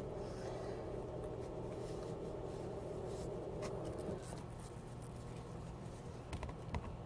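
Faint rubbing and a few light clicks of a damp paper towel wiping mushrooms, over a steady low hum that stops about four seconds in.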